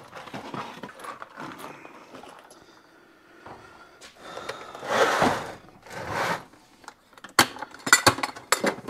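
Someone rummaging through small metal hardware, looking for washers: rustling and scraping, a louder clatter about five seconds in and another shortly after, then a quick run of light metallic clinks near the end.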